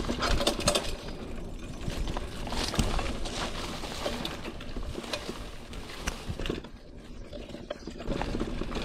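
Mountain bike riding over a rough, rocky trail: a steady rumble of tyre noise with frequent rattling clicks and knocks from the bike.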